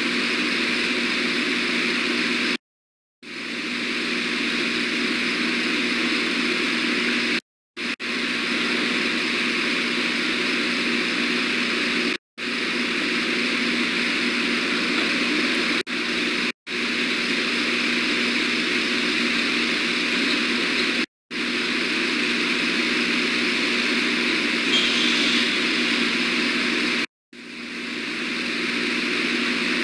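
Steady, loud hiss with a low hum from an outdoor nest-camera microphone, cutting out completely for a moment several times.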